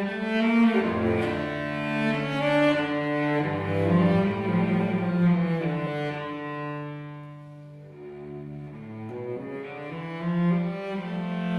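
Cello played with the bow in long, slow held notes. It grows quieter about seven to eight seconds in, then swells again.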